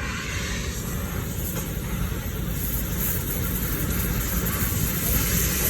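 Gas cutting torch running steadily as it cuts through a pipe: a continuous hiss over a low rumble.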